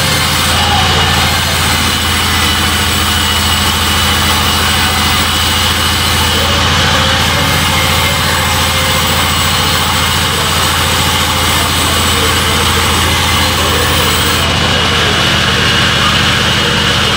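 Sawmill band saw running steadily as its blade rips lengthwise through a log, a loud continuous machine noise with a strong low hum.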